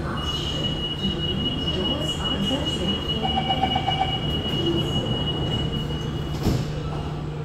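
SMRT CT251 metro train running with a low steady rumble. Its wheels give a high-pitched, steady squeal that starts just after the beginning and stops about six seconds in.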